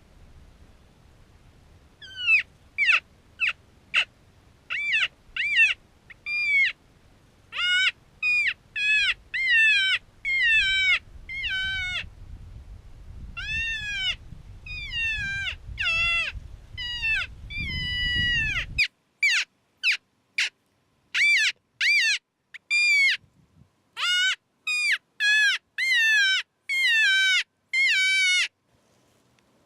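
Predator call for coyotes sounding a prey-in-distress sequence: runs of short, high, wavering cries, each bending up and then back down, with brief pauses between the runs.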